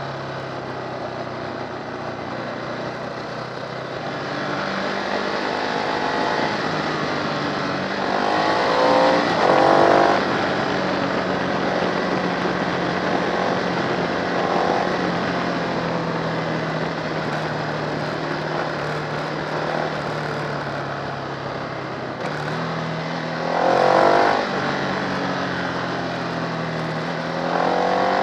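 Motorcycle engine running under way, heard from a camera mounted on the bike, over a steady rush of wind noise. The revs rise sharply about eight seconds in, again around twenty-four seconds, and once more at the end as the bike accelerates.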